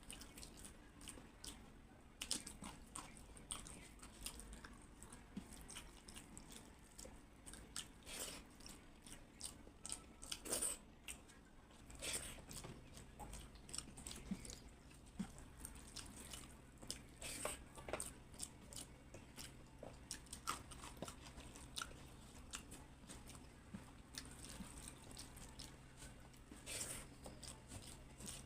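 A person chewing and crunching food, with many short, irregular crunches and mouth clicks.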